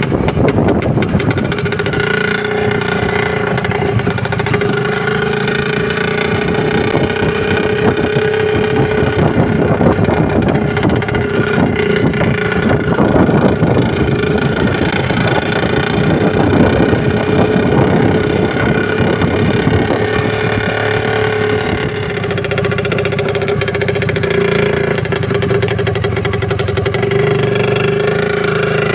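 IZh motorcycle's two-stroke engine running at a steady, nearly constant speed.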